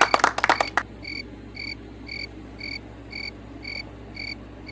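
Evenly spaced chirps, about two a second, each a short high note, from a calling animal such as a frog or cricket. Under a second in, the tail of the intro music's sharp clicking beat cuts off, leaving the chirps alone.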